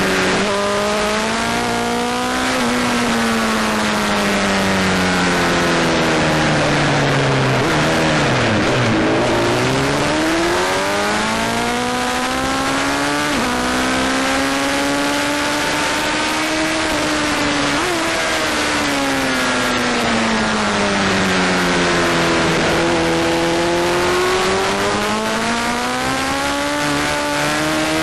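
Onboard sound of a Honda sport motorcycle lapping a racetrack: the engine note drops low as the bike slows into a corner about a third of the way in, then climbs under acceleration, dips again and climbs once more near the end, over steady wind rush.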